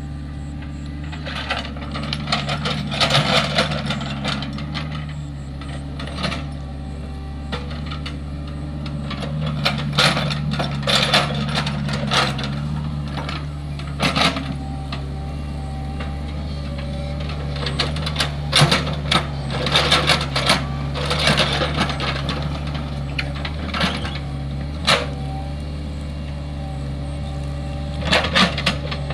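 Hitachi excavator's diesel engine running steadily, with repeated clanks and scrapes as the machine works dry, hard soil.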